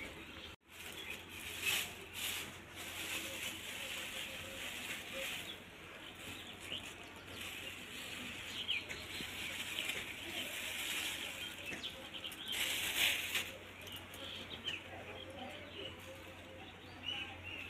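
Black plastic bags rustling as they are opened and a raw hairy goat skin is pulled out and handled, with louder flurries of rustling about two seconds in and again about two-thirds of the way through.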